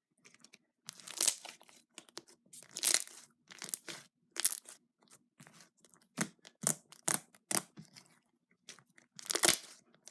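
Slime with foam beads mixed in being squished, poked and stretched by hand, giving a string of irregular crunchy, crackling pops with short pauses between them.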